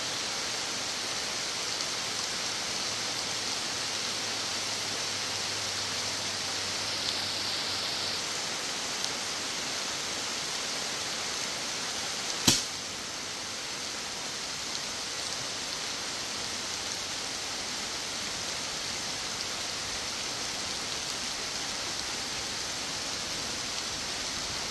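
Steady rain falling, with one sharp air rifle shot about halfway through.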